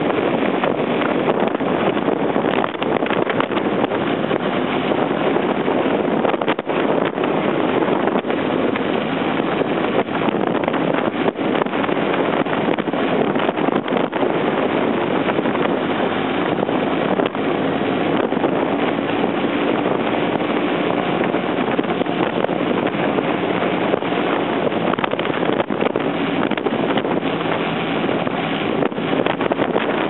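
Wind buffeting the microphone of a camera mounted on a cruising motorcycle, with a BMW F800ST's parallel-twin engine running steadily underneath.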